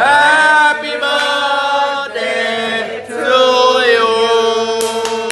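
Several voices singing long, held notes in a chant-like way, each note sliding into the next. Clapping starts near the end.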